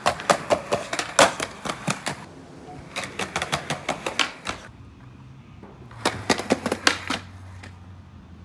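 Skateboard clattering on concrete patio pavers: three quick runs of sharp clacks and knocks from the wheels and board, with short pauses between.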